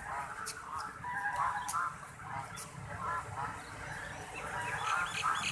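Domestic white ducks calling in short, repeated honking quacks, with high peeping from ducklings near the end.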